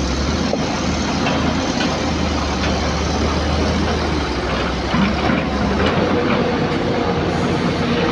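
Heavy diesel engine idling close by, a steady low hum that shifts in pitch and level about six seconds in.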